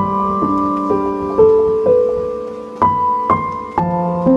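Slow, sad piano music: single notes and chords struck about every half second, each ringing on and fading.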